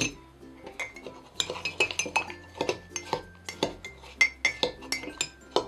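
Metal spoons clinking and scraping against ceramic mugs as snow-cone ice is stirred with flavouring syrup: many quick irregular clinks, some leaving a short ring.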